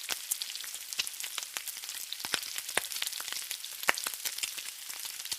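Oil frying in a pan: a steady sizzle dense with small, irregular crackling pops.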